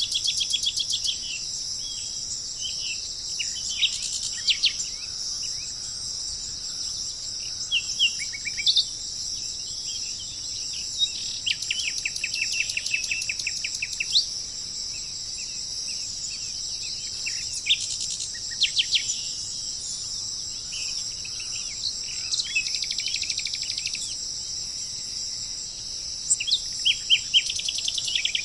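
Songbirds chirping, with short calls and quick trills coming every few seconds, over a steady high-pitched drone.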